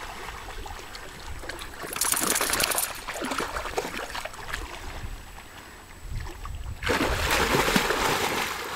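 Lake water splashing and sloshing in two spells, the first about two seconds in and a longer one from about seven seconds, over a low rumble.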